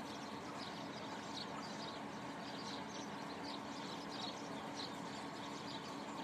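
Truck-mounted borewell drilling rig running with a steady hum. Short high chirps repeat about twice a second over it.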